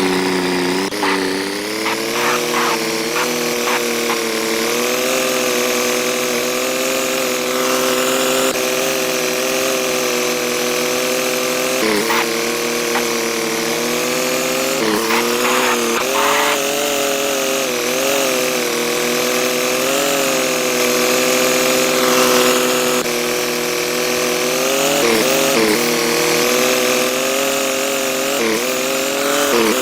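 An engine running steadily, its pitch rising and falling a little, with a few sharp clicks or knocks over it.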